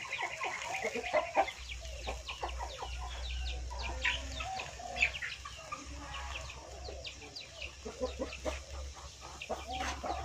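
Chickens clucking, with many short high falling chirps throughout. A low steady hum comes in about a second and a half in.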